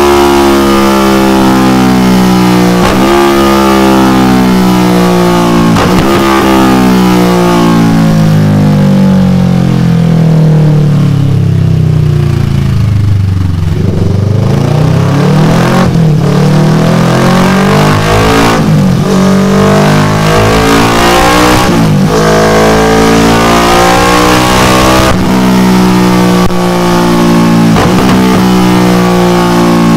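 Kawasaki Versys 650's parallel-twin engine running through a Delkevic full exhaust system. Its note falls slowly for about thirteen seconds as the revs drop, then climbs again and holds at higher revs, with a few short sharp cracks along the way.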